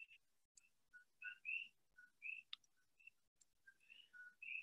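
Near silence, broken by faint, short high chirps at two pitches, a few each second.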